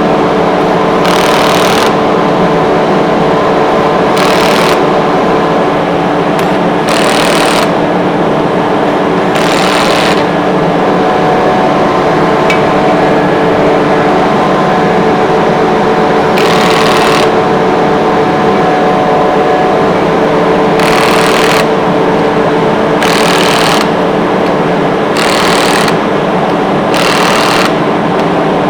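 Steady running hum of a screw air compressor, with several held tones. Short bursts of hiss cut in every two to four seconds, about nine in all, each lasting under a second.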